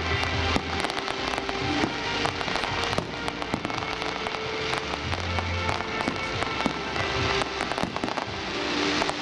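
Fireworks going off in quick succession, a steady run of bangs and crackles, over music with held notes and a bass line.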